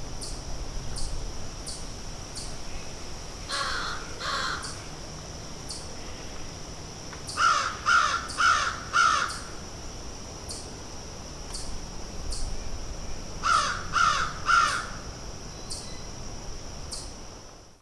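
Outdoor bird ambience: a bird gives loud calls in short series, twice, then four times, then three times. Behind them runs a steady high-pitched ringing with a short regular pulse a little over once a second.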